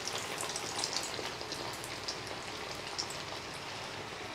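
Breadcrumb-coated egg fingers deep-frying in hot oil: a steady sizzle thick with small crackles.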